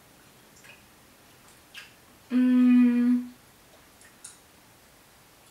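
A woman hums a single steady-pitched 'mmm' for about a second while tasting a sour-filled candy, with a few faint clicks around it.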